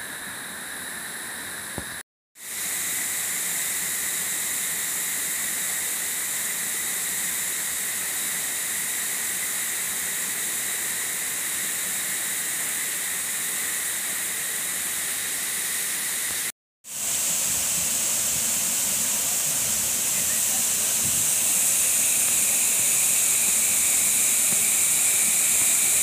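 Dehena Ella's 73 m twin-chute waterfall and the stream below it rushing over boulders: a steady hiss of falling and splashing water. The sound cuts out briefly about two seconds in and again about two-thirds of the way through. Each time it comes back a little louder, and it is loudest near the end.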